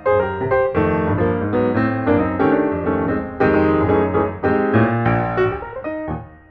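Piano music, a busy flow of notes and chords that drops away briefly near the end.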